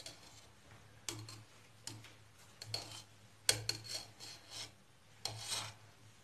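A spoon scraping and rubbing inside a steel ghee container, digging out ghee in about seven short scrapes, the sharpest about three and a half seconds in.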